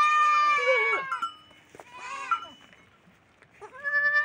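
Goats bleating: one long call at the start that falls slightly in pitch, a shorter one about two seconds in, and another near the end.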